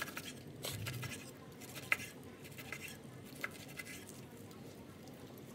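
Knife slicing through a grilled ribeye steak on a wooden cutting board: soft scraping cuts with a few sharp ticks, the loudest about two seconds in.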